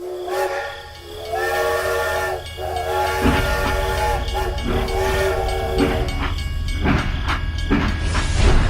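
A horn or whistle sounding in four blasts of about a second each, over a steady low hum that starts about three seconds in, with scattered clicks.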